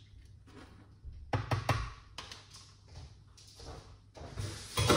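A few light knocks and thumps: a cluster about a second and a half in and a heavier thud near the end.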